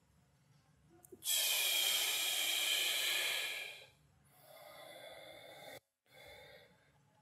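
A man breathing deeply and audibly as part of a seated breathing exercise. About a second in comes a long, loud in-breath as he straightens up. Then comes a softer, longer out-breath as he bends forward, briefly cut off near the end.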